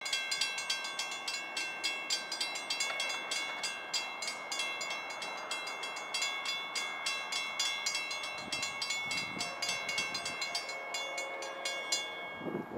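Railroad grade-crossing warning bell ringing in a rapid, even string of strikes, warning of an approaching train while the gate arms come down. It stops about twelve seconds in, once the gates are down. In the last few seconds a distant locomotive horn sounds faintly under it.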